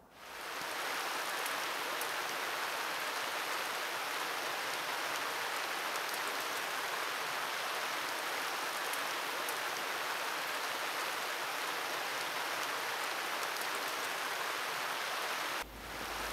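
Steady rain falling: an even hiss with scattered faint drop ticks. It fades in over the first second and stops shortly before the end.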